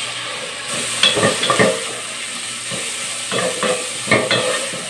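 Chopped bacon, onion, bell pepper and garlic sizzling as they fry in an aluminium pot, while a wooden spoon stirs them, scraping and knocking against the pot in short irregular strokes.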